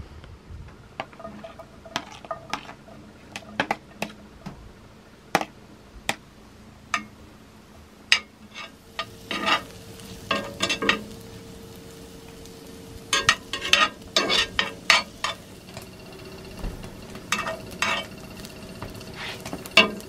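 Diced peppers sizzling in a cast iron skillet on a wood stove while a metal spoon stirs them, knocking and scraping against the pan in many sharp clicks. The sizzle thickens after about nine seconds.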